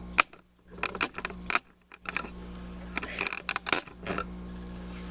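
Irregular clicks, knocks and creaks of a stiff tripod head being forced round as the camcorder is panned, heard as handling noise through the camera. A steady low hum runs underneath and drops out in places.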